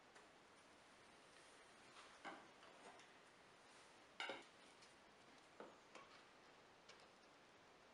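Near silence broken by about five faint taps and clicks as metal squares, an angle finder and a plywood miter jig are handled and set down on a plywood sled, the loudest about halfway through.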